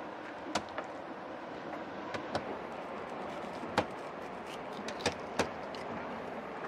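Knife blade clicking and tapping against a plastic cutting surface while a fish is filleted: sharp clicks at irregular moments, about seven in all, over a steady background hiss.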